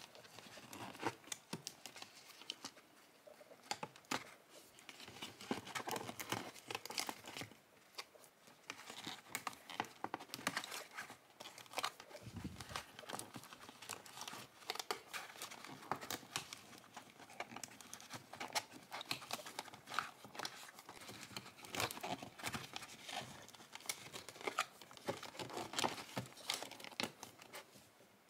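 Toy packaging being opened and handled by hand: a cardboard box and plastic inner packaging crinkling and rustling, with many small clicks and taps.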